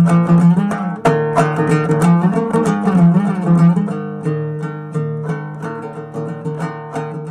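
Background music played on a plucked string instrument, quick picked notes over a held low note, slowly getting quieter over the last few seconds.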